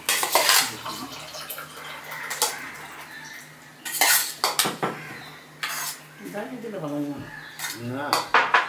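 Stainless-steel serving spoon clinking and scraping against steel bowls and plates as rice is served out, a string of sharp clinks with the loudest near the start, about four seconds in and near the end.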